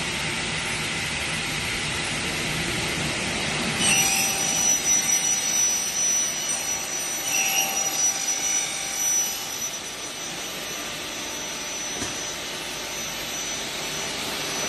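Double-head aluminium cutting saw running with a steady noisy hum. About four seconds in, a thin high whine starts and holds, with uneven louder stretches for about five seconds.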